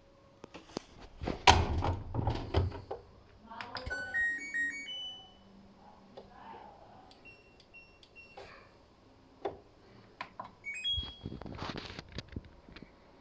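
LG washing machine control panel beeping: a short rising electronic tune about four seconds in, then single button-press beeps a few seconds later and again near the end. Knocks and clunks of the machine being handled come in the first few seconds, and a rustling noise near the end.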